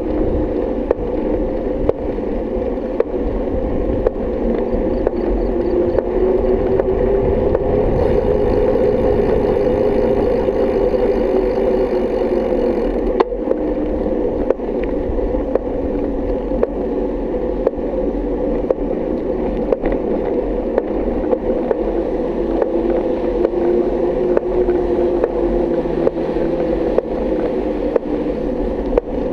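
Bike rolling along a paved lane: a steady rumble and hum, with frequent small rattles and knocks. A faint hiss is added for a few seconds near the middle.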